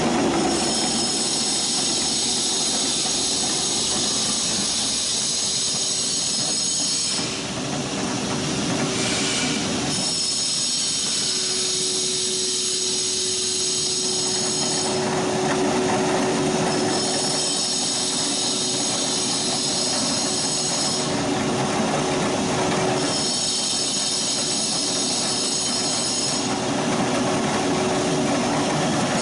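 Electric stone mill running steadily while grinding dry dog food, with a constant hum and a high whine that comes and goes every few seconds.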